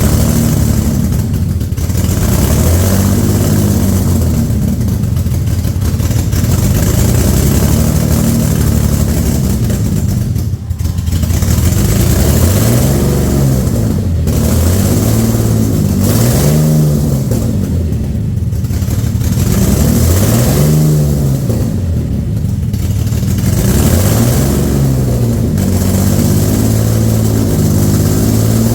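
Rebuilt Infiniti G35 3.5-litre V6 running just after its first start, blipped repeatedly so the revs rise and fall about every two seconds. It runs rough and stumbles, which the owner puts down to a large vacuum leak.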